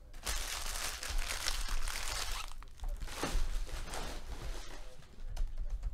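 Empty foil trading-card pack wrappers being crumpled and gathered up by hand, in two long stretches of crinkling with a short break between, softer rustling near the end.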